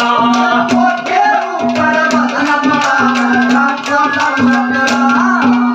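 Instrumental interlude of Haryanvi ragni folk music: a hand drum playing a quick rhythm of about four strokes a second under steady held notes from a melodic instrument, with a gliding melody line above.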